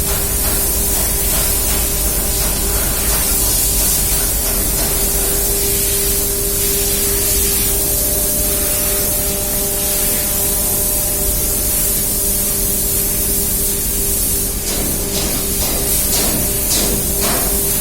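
Steady loud machinery noise: a constant hiss with a humming tone beneath it, and a few faint knocks near the end.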